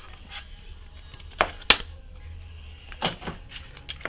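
Trading cards and their packaging being handled at a table: a few short, sharp rustles and clicks, the loudest about a second and a half in and two more close together about three seconds in, over a low steady hum.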